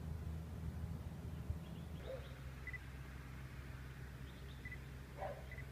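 Quiet outdoor ambience: a steady low rumble with a few faint, short, high bird chirps.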